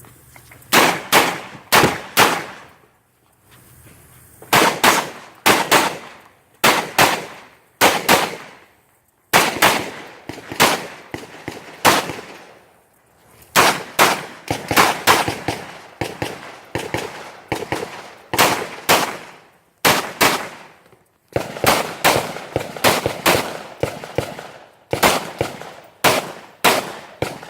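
A rifle being fired rapidly in quick pairs and strings of three or four shots, with pauses of about a second between strings.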